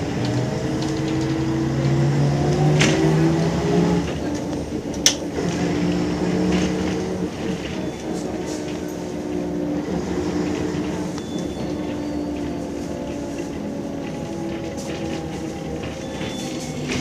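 Ikarus 260 bus's six-cylinder diesel engine heard from inside the passenger compartment, its pitch rising as the bus accelerates, dropping at a gear change about four seconds in, then running on and slowly easing off. Two sharp clicks cut through, the louder about five seconds in.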